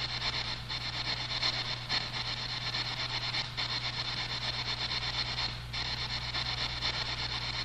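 Spirit box sweeping through radio stations: a steady hiss of static chopped into fast, regular pulses, over a low steady hum.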